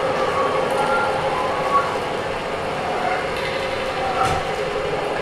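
Improvised experimental sound performance: a steady, dense noisy drone with brief faint whistling tones drifting in and out.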